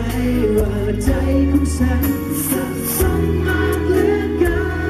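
A man singing a Thai pop song live into a handheld microphone over loud backing music, holding long notes in the second half.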